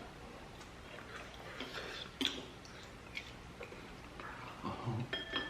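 Close-up eating sounds of kkanpunggi, Korean fried chicken in sweet-spicy sauce: scattered chewing with short, sharp clicks and crackles. A brief low hum comes near the end.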